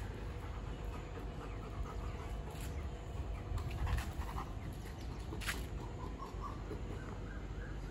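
Working-line German Shepherd panting hard with its mouth open after play-wrestling with another dog. A few brief sharp sounds stand out, the loudest about five and a half seconds in.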